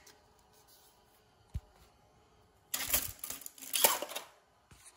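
Metal head gasket slid down over the head studs and set onto the engine block deck: a short knock, then about a second and a half of metallic clattering and scraping.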